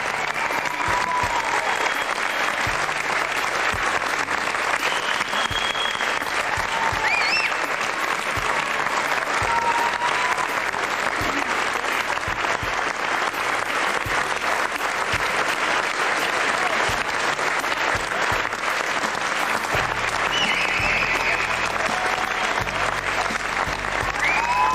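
A crowd applauding steadily, a dense continuous clapping, as the team is welcomed home.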